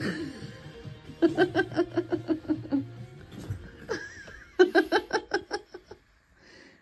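A woman laughing in two bursts of quick, rapid pulses, the first about a second in and the second a little past the middle, over quiet background music.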